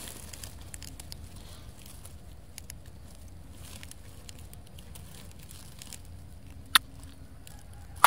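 Quiet outdoor background noise with scattered faint ticks and crackles, and one sharp click near the end.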